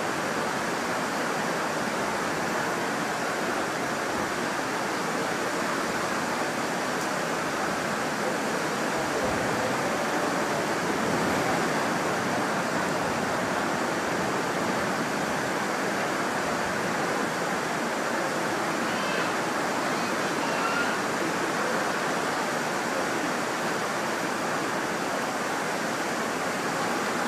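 Steady rushing noise of the tidal current churning through the Naruto whirlpools below.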